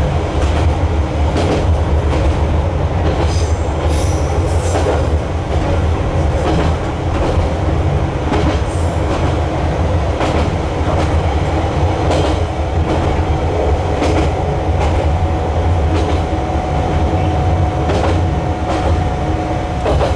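Train running along a single track, heard from inside the cab: a steady low rumble with wheels clicking over the rail joints. High-pitched wheel squeal comes and goes between about three and nine seconds in, and a steady hum joins from about halfway.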